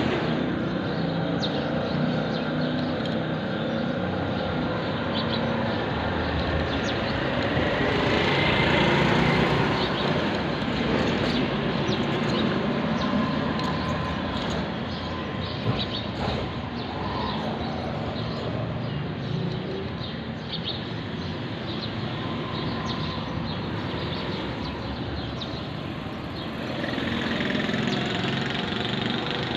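Steady background street traffic, swelling twice as vehicles pass, about a third of the way in and near the end.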